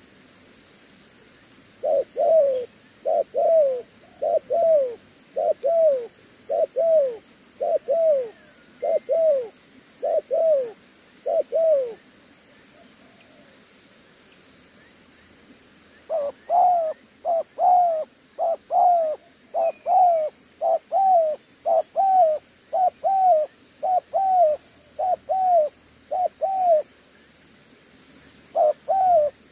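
Spotted dove cooing in the 'thổ' style: long runs of short, arched coos, a little more than one a second, with a pause of about four seconds midway and another shortly before the end.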